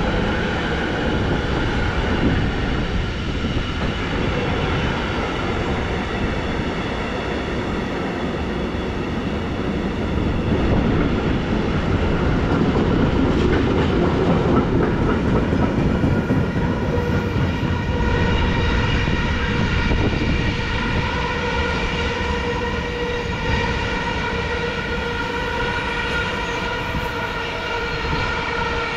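A train moving along the track, its wheel and running noise swelling about halfway through. In the second half it carries a steady whine of several held tones.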